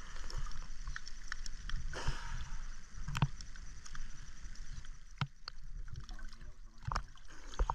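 Water sloshing and splashing around a small fishing boat, with scattered knocks and clicks against the hull.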